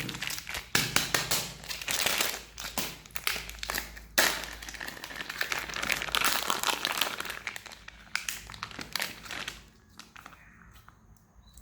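Plastic packaging crinkling and rustling as it is handled, a dense run of crackles that dies away near the end.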